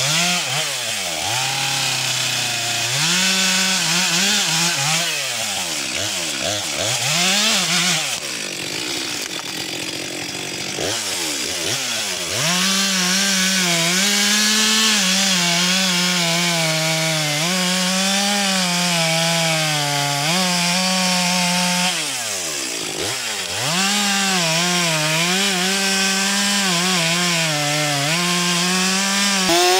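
Stihl MS 462 two-stroke chainsaw running at high revs while cutting through a walnut trunk. Its pitch drops and climbs back several times as the chain works through the wood.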